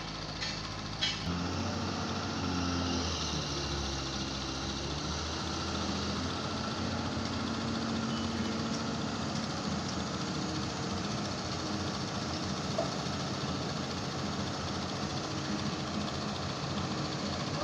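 Heavy diesel engine of a hydraulic pile-driving rig running steadily, its note getting lower and stronger about a second in. A couple of light clicks come just before.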